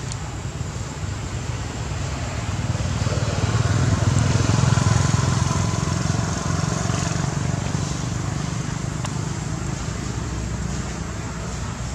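A motor vehicle's engine rumbles past, growing louder to a peak about four to five seconds in and then fading away.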